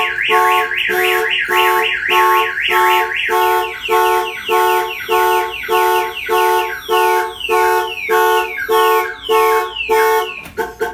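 Viper 5706V car alarm siren going off, set off by its glass-break sensor from a tap on the rear window. It opens with a fast rising-and-falling wail for about three seconds, then changes to a repeating falling tone, and stops near the end with a few short chirps.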